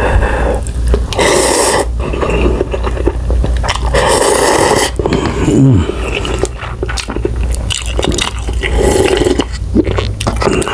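Close-miked slurping and chewing of Shin Ramyun instant noodles, with wet mouth clicks throughout. There are three long slurps, the last as the broth is sipped from the cup.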